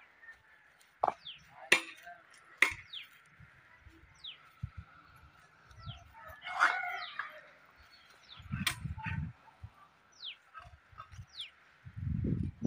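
A rooster crowing once, about six and a half seconds in, with short falling bird chirps scattered throughout. Sharp clicks about one, two and three seconds in are the loudest sounds, and there are low thuds near the nine-second mark and near the end.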